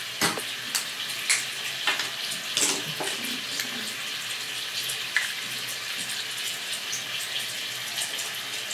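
A steady rushing hiss with a few light clicks and knocks scattered through it, most in the first three seconds.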